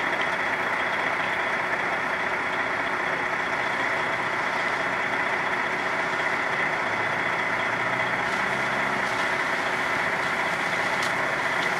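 A truck's engine idling steadily.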